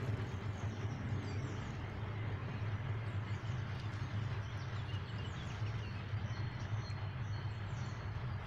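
Riverside ambience outdoors: a steady low rumble and hiss, with small birds chirping now and then over it.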